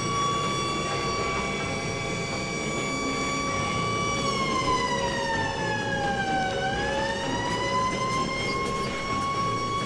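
Emergency-vehicle siren sounding a steady high tone. About halfway through it slides down in pitch for two seconds, then climbs back to the same note, over a steady rumble of noise.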